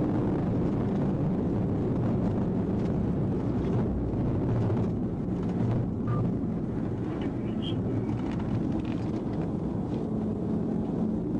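Police patrol car running at highway speed: steady engine, tyre and wind rumble that eases slightly as the car slows from about 119 to 77 mph under braking.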